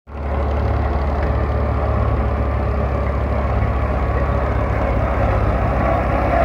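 Belarus MTZ tractor's four-cylinder diesel engine running steadily with a fast, even low throb as the tractor pushes mud with its front blade.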